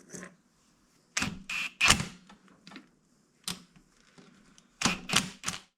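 Sharp clicks and knocks at irregular intervals, some in quick clusters of two or three, from objects being handled during work on a car.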